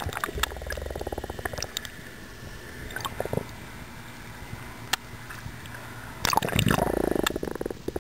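Seawater sloshing and gurgling around a camera bobbing in and out of the water, with scattered sharp clicks and two bursts of bubbling, the louder and longer one about six seconds in.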